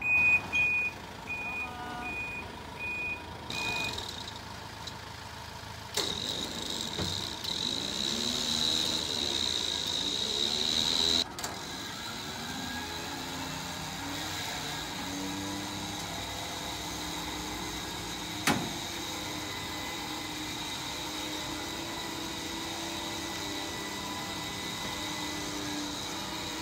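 Flatbed tow truck unloading a van: its reversing beeper sounds for the first few seconds, then the truck's engine and hydraulics run with a high whine and engine pitch rising and falling, which cuts off suddenly. A steady engine hum follows, with a single knock part way through.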